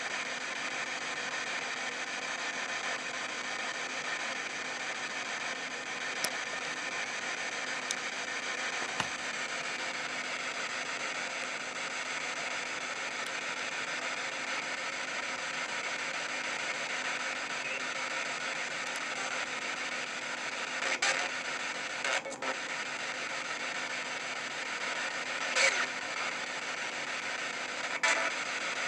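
P-SB7 spirit box radio sweeping through the band: a steady hiss of static, with a few short louder bursts in the last several seconds.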